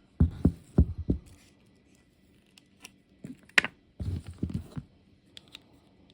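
Small plastic figure and its tiny hat being handled and fitted together: a quick run of dull thumps, a sharp click about three and a half seconds in, then more thumps.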